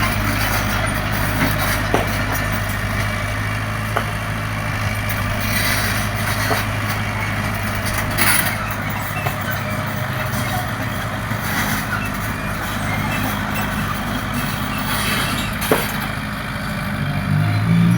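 Excavator's diesel engine running steadily, with a few sharp clicks; the engine note rises near the end.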